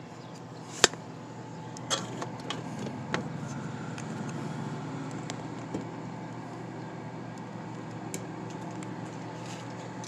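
Scattered sharp clicks and light knocks of tools and the camera being handled, the loudest about a second in, over a steady low hum.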